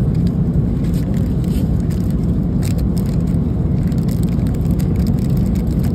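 Steady low rumble of an airliner cabin in flight, with light crackles and scrapes of plastic-wrapped meal packaging being handled.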